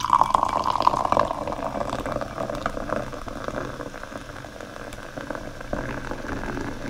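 Carbonated cola fizzing: a dense crackle of tiny bubbles bursting, loudest at the start and settling a little after.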